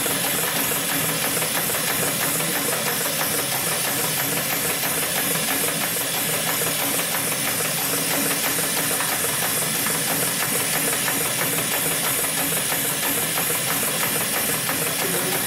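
Industrial automatic sewing machine stitching a spiral seam through a thick stack of cotton buffing-wheel cloth. It runs steadily with rapid, even needle strokes under a constant hiss.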